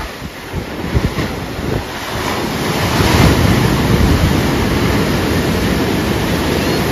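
Sea surf breaking on the beach, swelling louder about three seconds in as a wave crashes onto the shore, with wind buffeting the microphone.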